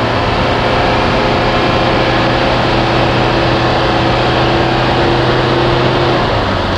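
1983 Mercedes 240D's four-cylinder diesel engine running steadily while driving, heard from inside the cabin along with road noise; the engine note drops slightly near the end.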